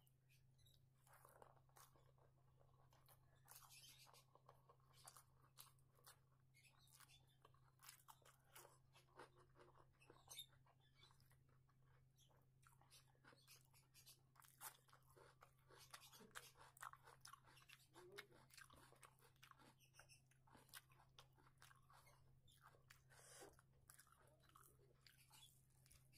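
Faint close-up eating sounds of rice and fried food eaten by hand: irregular chewing, crunching and small wet clicks and smacks, over a steady low hum.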